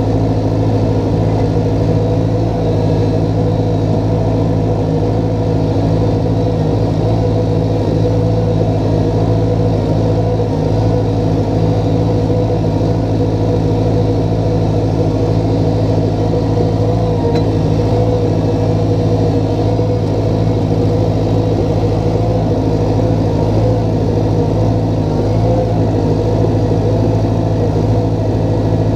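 Small excavator's diesel engine running steadily at a constant speed, heard from the operator's seat.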